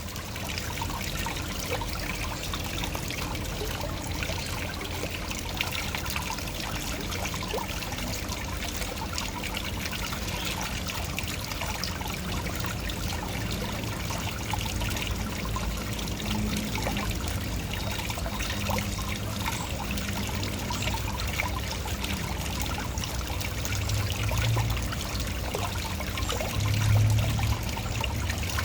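Waterfall: water falling and splashing steadily, with a low rumble that swells briefly near the end.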